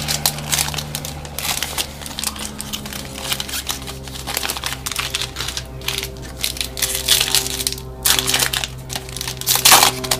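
Foil wrapper of a Topps baseball card pack crinkling and tearing as it is ripped open by hand. The irregular crackly rustling is loudest near the end.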